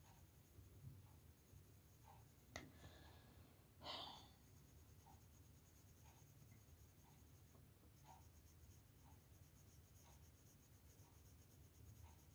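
Near silence: faint strokes of a coloured pencil on paper, with a sharp tap about two and a half seconds in and a short soft rush of noise about four seconds in.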